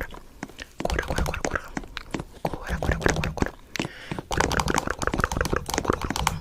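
A busy run of cartoon sound effects: rapid, irregular clicks, knocks and thuds with a low hum underneath.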